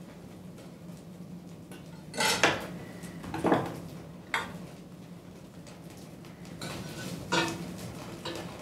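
Hard objects being handled and set down by hand, with about four short clinks and knocks, the loudest a little over two seconds in, over a steady low hum.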